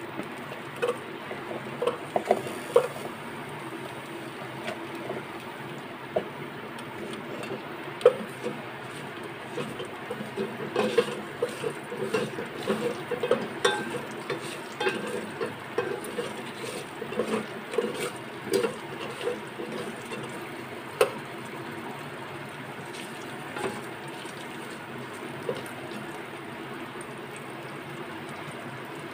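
Wooden spatula knocking and scraping against a steel bowl and the metal pot of an electric cooker as chopped green chillies are tipped in and stirred through seeds in oil. A few knocks come at the start and a dense run of them in the middle, over a steady hiss.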